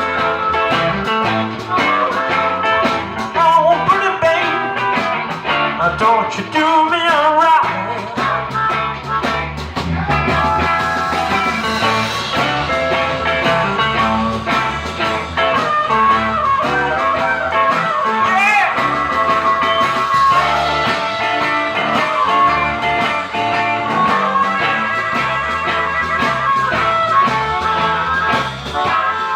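Live blues band playing, with electric guitar bending and sliding notes over a walking bass line and drums, recorded on a cell phone.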